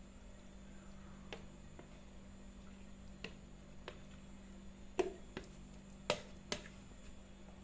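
Coconut-milk mixture being poured from a plastic measuring jug over whole fish in a metal baking tray: faint, with scattered sharp clicks and taps, the loudest about five and six seconds in, over a low steady hum.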